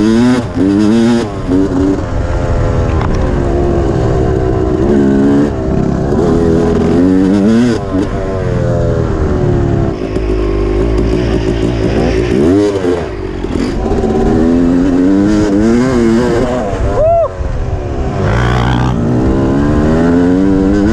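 Yamaha dirt bike engine under hard riding, its pitch climbing on the throttle and dropping back again and again as the rider shifts gears and rolls off.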